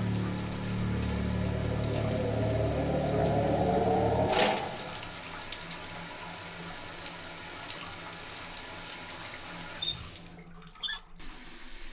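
Water running from a shower tap, then shut off near the end as the cross-handle valve is turned, with a small squeak from the handle. Over the first four seconds a low drone swells and ends in a sharp hit.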